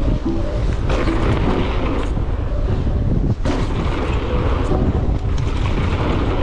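Wind buffeting the microphone with a steady deep rumble while riding a mountain bike, broken by scattered knocks and rattles, a few of them sharp.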